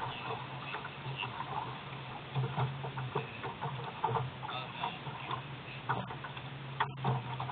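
A ski boat idling close to shore: a steady low engine hum with irregular small ticks and light water slaps against the hull.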